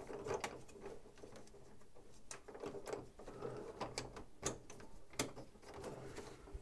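Plastic panels of a Devil Saviour DS-04 Smash transforming robot figure clicking and knocking as they are slid and folded into place by hand: faint, irregular small clicks, with a few sharper ones about four and five seconds in.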